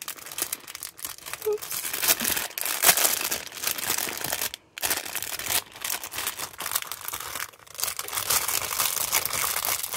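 Thin clear plastic packaging bag crinkling and rustling as it is handled and opened and pens and a pen mold are pulled out of it, with one short break near the middle.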